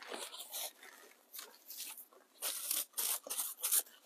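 Paper towel crinkling and rubbing as it is pulled off and wrapped around a small foam ball to wipe off ink stain: a run of short, scratchy rustles, louder in the second half.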